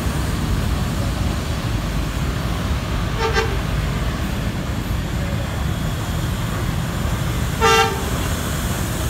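Street traffic running steadily, with two short vehicle horn toots, one about three seconds in and a louder one near the end.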